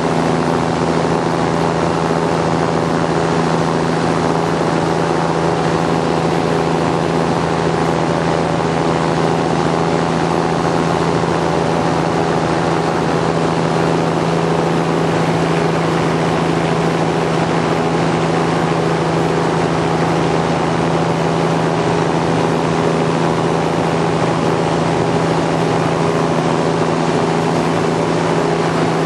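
Small aircraft's engine and propeller droning steadily in flight, holding one unchanging pitch, with a hiss of rushing air over it.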